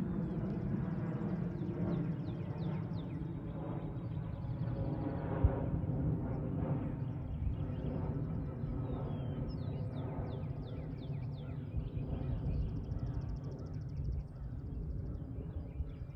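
Electric 450-size RC helicopter's main rotor winding down after landing, a low steady whir, while small birds chirp over it in short repeated calls and give a buzzy trill near the end. A single sharp click comes about five seconds in.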